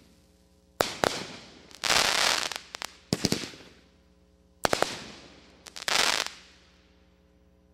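500-gram aerial repeater firework cake firing shot after shot: sharp launch and burst reports about a second apart, several followed by a second or so of crackling hiss from gold crackling stars. The shots die away after about six seconds.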